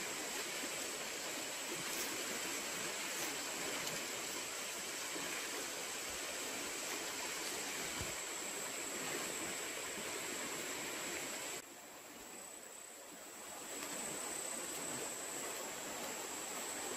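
River water flowing steadily, with a steady high-pitched tone above it. The sound drops to a lower level for about two seconds a little past the middle, then comes back.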